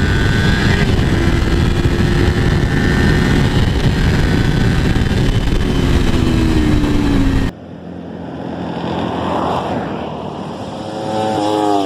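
Kawasaki Ninja 400 parallel-twin with a Fuse Racing slip-on exhaust (dB killer fitted) at full throttle, its engine note climbing under heavy wind noise. About seven seconds in the sound cuts abruptly to a quieter recording in which an engine approaches and passes, its note dropping in pitch.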